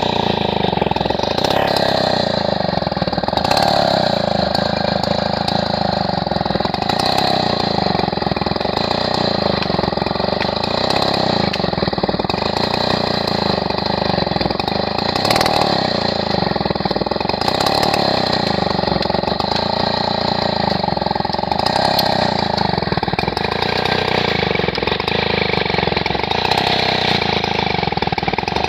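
Large two-stroke 070 chainsaw running at high revs while its bar cuts into hardwood. The engine note dips and recovers every second or two as the chain bites into the wood.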